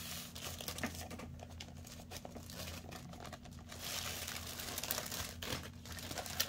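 Tissue paper and plastic wrapping crinkling as a wrapped planner is slid out of its packaging, with many small crackles that grow louder about four seconds in.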